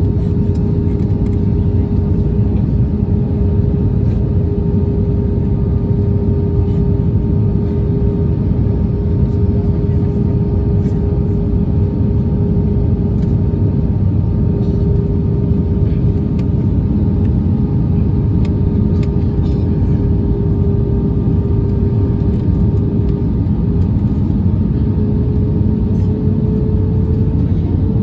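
Cabin noise of an Airbus A320-232 on approach with flaps extended, heard from a window seat over the wing: a steady rumble of airflow with the hum of its IAE V2500 engines. The engine hum rises slightly in pitch near the end.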